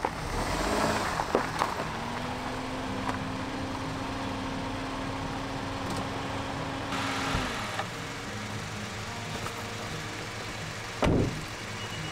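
Small kei car's engine running at idle, cutting out about seven and a half seconds in; near the end, a car door shutting with a single thunk.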